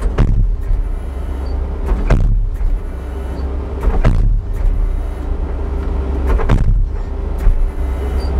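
Skid steer engine running under hydraulic load while its post pounder hammer strikes a fence post four times, about two seconds apart.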